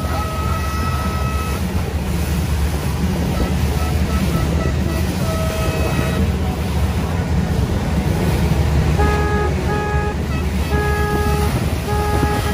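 Low rumble of a small boat running through choppy water, with wind and wash. Boat horns toot over it: one held note at the start, then from about nine seconds a run of short, evenly spaced honks.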